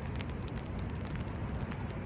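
Wind buffeting the microphone outdoors: a steady low rumble with scattered light ticks, and no siren tone.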